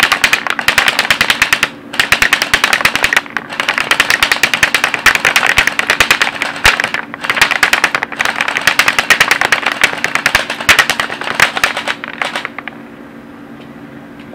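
Cyma CM.022 AK-47 electric airsoft gun firing on full auto: about five long bursts of rapid clacking, with short breaks between them, stopping shortly before the end.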